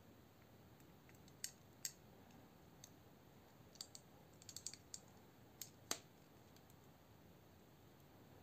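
Scattered small sharp clicks of an Eafengrow EF966 folding knife's parts being handled and fitted together by hand: two clicks about a second and a half in, a quick cluster in the middle, and the loudest pair near the six-second mark.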